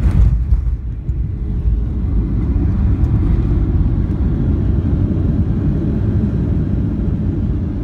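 Steady low rumble inside the cabin of a Boeing 737-700 during its landing rollout, the engine and the wheels running on the runway, with a short burst of noise right at the start.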